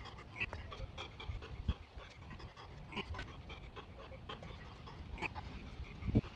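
Rapid, rhythmic panting, with a couple of soft low thuds near the end.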